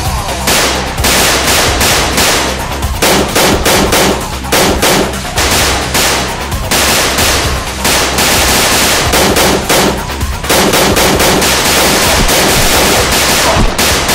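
Rapid bursts of machine-gun and gunshot sound effects standing in for Nerf blasters being fired, with only brief pauses. Background music with a steady low beat runs underneath.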